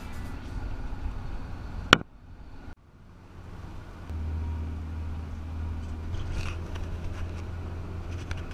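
A passenger van's engine and road noise, heard from inside the cabin while driving. A steady low hum, broken by a sharp click and a short drop-out about two seconds in.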